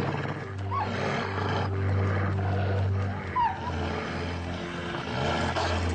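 Wolves snarling and growling as the pack drives out one of its members, with two short yelps, about a second in and past the middle, over sustained low background music.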